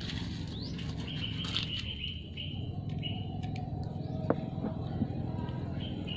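Small birds chirping, with short rising calls, over a steady low rumble. Two sharp clicks come about four and five seconds in.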